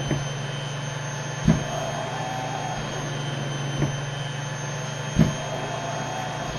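Cough assist (mechanical insufflation-exsufflation) machine running with a steady blower hum, thumping four times as it switches between its timed inhale, exhale and pause phases.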